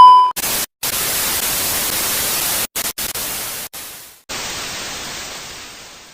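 Loud white-noise static hiss, broken by several brief dropouts and fading away near the end. A steady beep tone cuts off just after the start.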